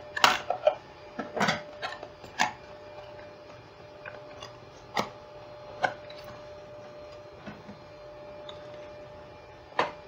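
Sharp plastic clicks and snaps as the case of a Totolink S505 five-port network switch is pried apart and its circuit board worked out: several in the first two and a half seconds, then single clicks about five and six seconds in and one near the end, over a faint steady hum.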